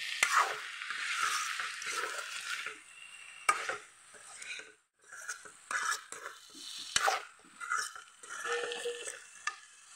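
Metal spatula stirring and scraping chopped onions and potatoes frying in oil in a metal kadai, with sizzling and a few sharp knocks of the spatula against the pan. The stirring pauses briefly about halfway.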